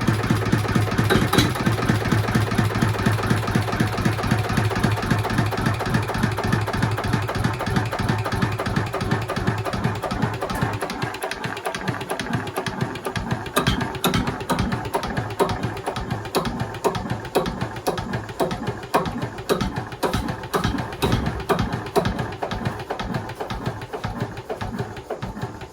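Southern Cross BDC single-cylinder stationary engine running steadily with an even firing beat after a ring rebuild, going well. A low hum underneath stops about eleven seconds in while the engine beat carries on.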